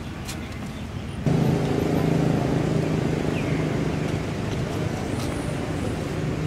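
A steady low engine hum, like a motor vehicle running nearby, that starts abruptly a little over a second in.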